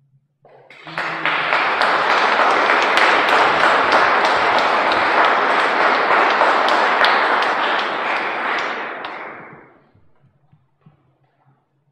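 Audience applauding at the end of a piece. The clapping swells up within the first second or so, holds steady, then dies away near the end.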